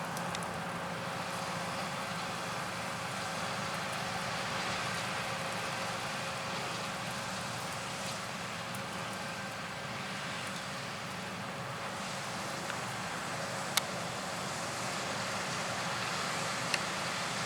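Steady drone of harvest machinery running at a distance, with a faint constant whine and low hum over a noisy hiss. A few sharp clicks come near the end.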